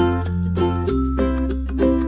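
Upbeat children's background music: plucked notes, about four a second, over a held bass line.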